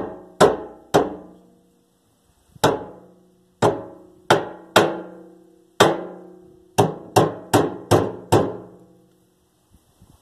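A hammer striking metal about a dozen times at an uneven pace, each blow leaving a short metallic ring, as the fuel tank is knocked up into position under the car.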